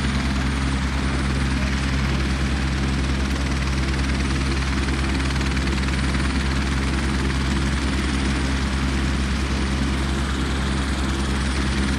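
Helicopter running steadily on the ground with its main rotor turning: an even low beat under a rushing hiss.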